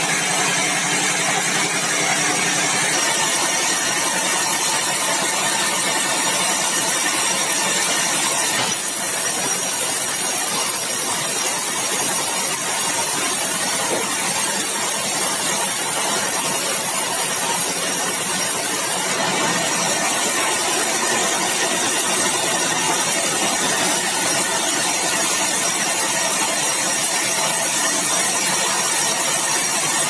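Sawmill band saw running steadily while its blade rips a length of keruing hardwood, a continuous loud machine drone with a hiss of cutting on top. The high hiss grows stronger about nine seconds in and eases off about twenty seconds in.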